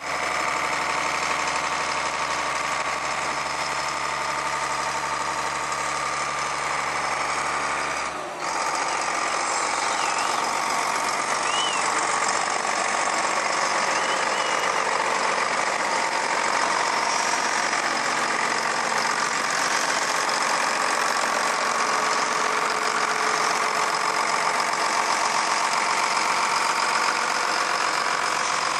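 Challenger MT655B tractor's diesel engine idling steadily. A low hum under it drops out about eight seconds in.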